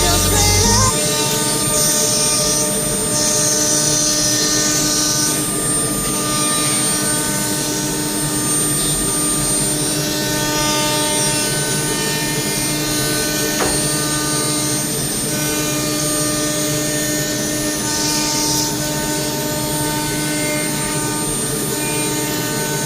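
CNC cutting machine running steadily, a whine of several steady tones with a few spells of high hiss, the longest in the first few seconds and a shorter one near the end.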